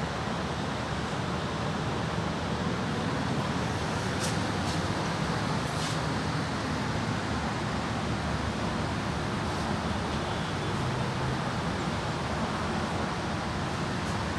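Audi A6 idling steadily through an upgraded full exhaust system, with a low, even exhaust note. A few faint light ticks come about four to six seconds in.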